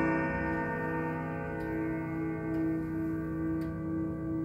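Urgos grandfather clock's struck chime ringing on and slowly fading, with the movement ticking faintly about once a second.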